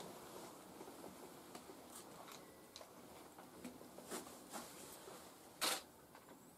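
Quiet room with faint scattered clicks and soft rustles as a woman holds her hand against her face, and one short, louder rustling noise about five and a half seconds in.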